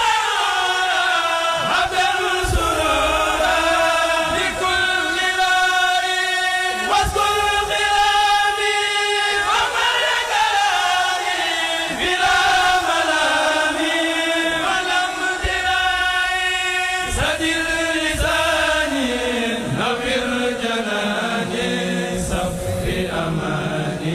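A kourel, a group of men's voices, chanting a Mouride xassida, holding long notes that glide from pitch to pitch.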